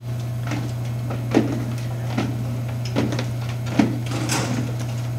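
A metal hallway locker being opened: knocks at a regular pace and a brief rattle about four seconds in, over a steady low hum.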